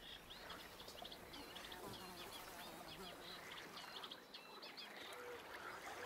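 Faint birdsong: a rapid string of short, high chirping notes for about three seconds over a quiet outdoor background, followed by a few short, low, steady calls near the end.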